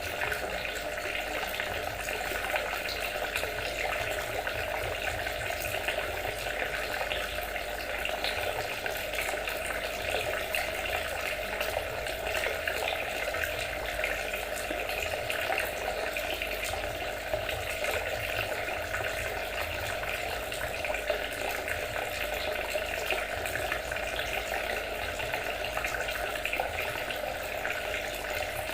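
Water trickling and splashing steadily without a break.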